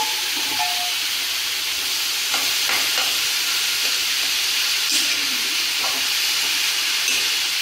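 Grated bottle gourd (lauki) frying in desi ghee in a pan, with a steady sizzle and a few light scrapes of the stirring spoon.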